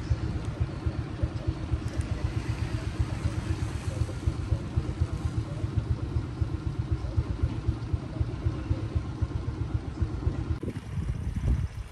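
An engine running with a low, fast-pulsing rumble.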